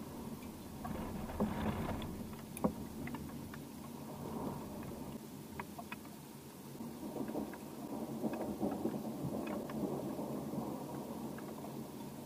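Distant thunder rumbling in two long rolls, the first swelling about a second in, the second building through the latter half, with scattered light ticks.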